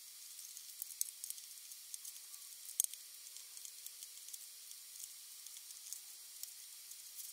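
Faint, sharp little clicks and ticks from small screws and FEP film being handled as a resin-printer vat frame is assembled, over a steady hiss; the sharpest click comes just under three seconds in.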